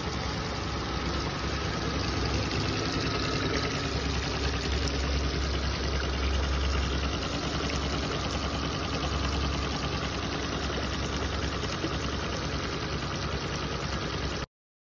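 70hp Suzuki outboard running steadily in a test tank, its cooling freshly restored with a new water pump and cleaned exhaust-manifold water passages. The sound cuts off abruptly near the end.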